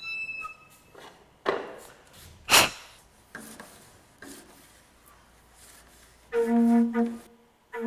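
Scattered knocks and rubbing, the sharpest about two and a half seconds in. Near the end an organ pipe sounds one steady note for under a second.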